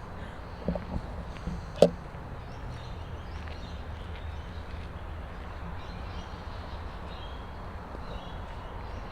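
Outdoor background: a steady low rumble with faint, scattered high chirps like distant birds, and a single sharp click a little under two seconds in.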